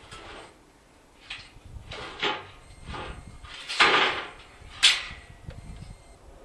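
Irregular knocks and scrapes of heavy parts being handled. The loudest is a longer scraping clatter about four seconds in, followed by a sharp knock just under a second later.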